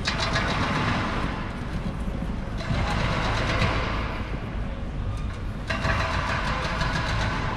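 Urban street ambience: a steady low rumble of traffic with indistinct voices of passers-by.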